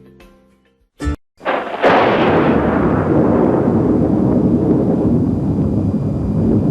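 Background music fades out, then after a brief blip a sudden loud explosion-like boom sets in about a second and a half in and carries on as a sustained wash of noise, its hiss dying away while the low part holds.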